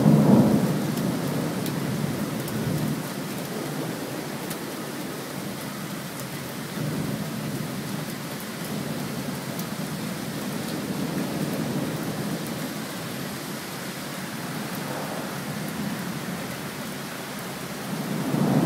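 Thunderstorm with steady rain and rolling thunder. A loud peal rumbles away over the first couple of seconds, fainter rumbles come and go through the middle, and the thunder builds loud again near the end.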